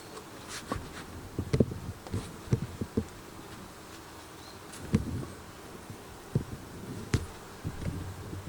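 Honey bees buzzing around an opened hive, with a dozen or so short knocks and clicks scattered through it.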